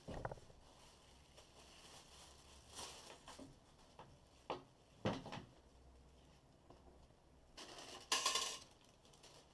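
Handling noises from unpacking a bread maker: a couple of knocks and bumps on the machine's case, some brief rustling, and a loud rustle of packing paper pulled out of the baking chamber near the end.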